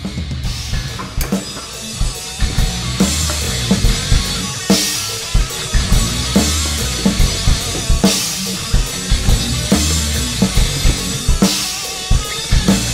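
Background music with a steady drum-kit beat, heavy on bass drum and snare.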